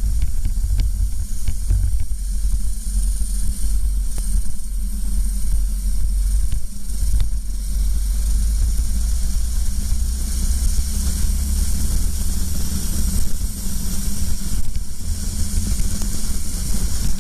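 Racing kart engines running as the pack accelerates, heard from an onboard camera, with heavy wind rumble on the microphone and a steady high hiss.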